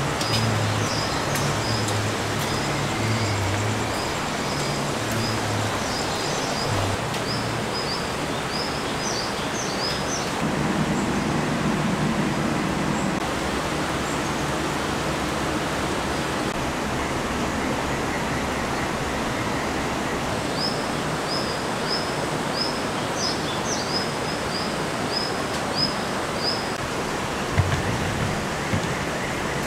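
Steady rush of flowing water, with runs of high, repeated chirps over it and a few knocks near the end.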